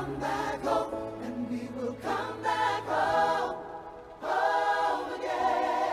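Music: a song sung by a group of voices in chorus, with held notes over a backing track with a steady bass line.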